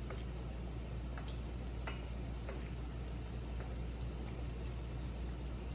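Crawfish frying in a pan, sizzling steadily with a few faint crackles in the first couple of seconds.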